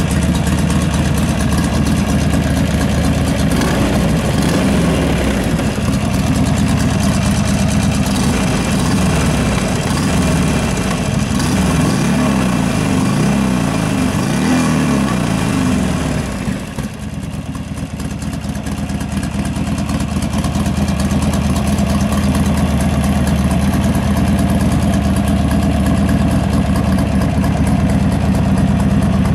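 Buell XB12R Firebolt's 1203 cc 45-degree V-twin idling steadily, with a brief drop in loudness a little past halfway before it builds back.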